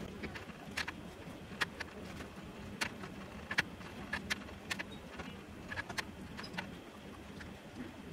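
Silicone spatula stirring a thick mango, milk and sago pudding in a metal pan: soft, irregular wet clicks and scrapes, about one every half second to second.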